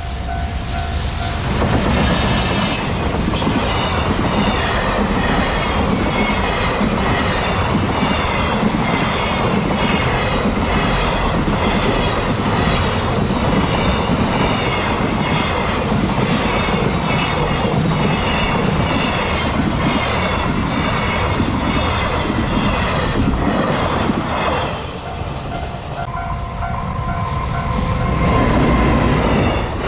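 A level crossing warning bell rings. Then a long freight train hauled by a JR Freight EF210 electric locomotive passes over the crossing for about twenty seconds, its wheels clicking rhythmically over the rail joints. As it clears, the crossing bell is heard again, and near the end the train noise swells again.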